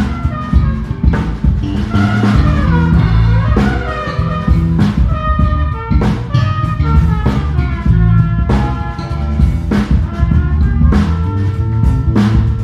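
Live band playing an instrumental groove: electric bass carrying strong low notes, a guitar line above it, and a drum kit with a sharp hit about every second and a quarter.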